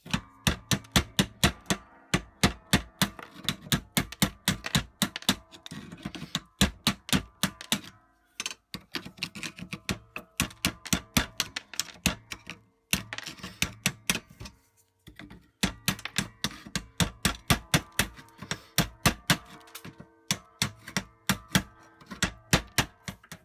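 Steel chisel tip striking and chipping a hard, melted-on deposit off a metal wood-stove door: rapid sharp ticks, about three or four a second, in runs broken by short pauses, with a metallic ring.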